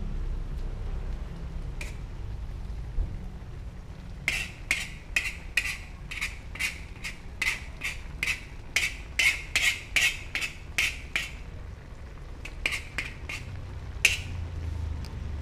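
A metal utensil scraping and clinking against an aluminium wok while vegetables are stir-fried, in a quick run of sharp strokes about two or three a second through the middle, then a few scattered knocks, the loudest near the end. A low steady rumble sits underneath.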